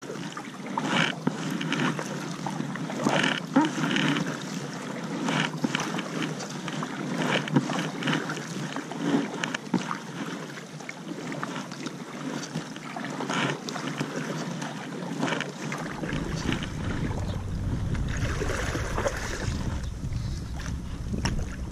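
Double-bladed kayak paddle dipping and splashing into lake water, a stroke every second or so, with the kayak gliding between strokes. A low rumble joins about three quarters of the way in.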